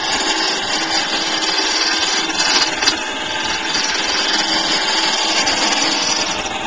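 Jet wood lathe turning a wooden spindle while a gouge cuts into it: a steady hiss and scrape of the tool on the spinning wood over a low motor hum, with one sharp click a little before halfway.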